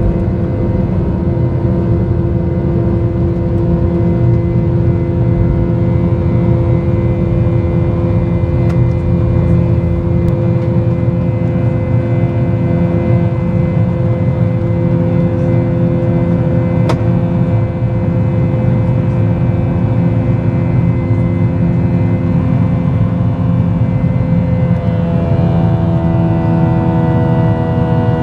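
Boeing 737-800's CFM56-7B jet engines and airflow heard inside the passenger cabin: a loud, steady drone with several humming tones over it. About three-quarters of the way through, the tones shift and new ones join in, as the engine sound changes.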